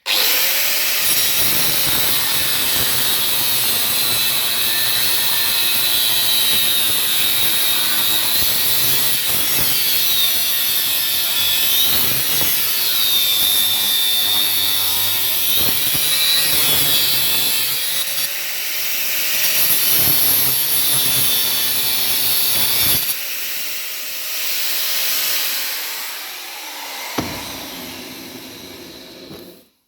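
Electric power tool cutting through an aluminium suspension control arm at the ball joint housing. Its pitch keeps dipping and recovering as it bites under load. It is quieter for the last several seconds, then cuts off just before the end.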